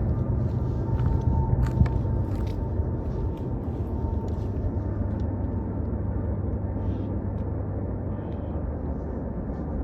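A steady low droning hum from afar, with a faint higher tone over it; the low tone drops a little about two seconds in. A few sharp clicks sound in the first two seconds.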